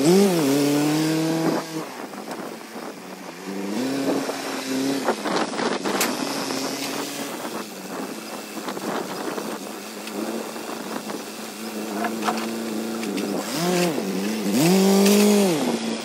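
Tractor engine running and revving up and down several times as the tractor's front loader moves a long beam, with a few sharp knocks in between.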